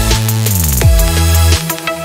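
Background music with a heavy bass line and a drum beat, with a falling sweep about half a second in.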